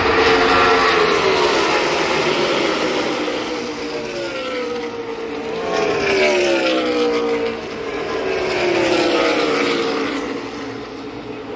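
NASCAR Cup Series stock cars' V8 engines racing past in packs, the pitch falling as each group goes by, three passes in a row.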